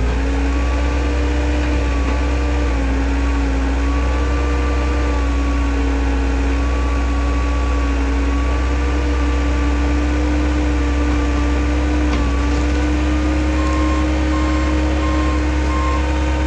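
Engine running steadily at a constant speed with a deep hum and a faint high whine.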